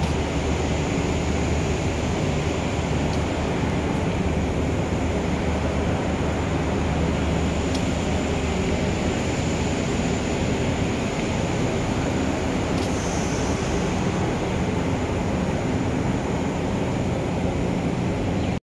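Steady, even outdoor background noise, a low rumble with hiss above it, that cuts off suddenly near the end.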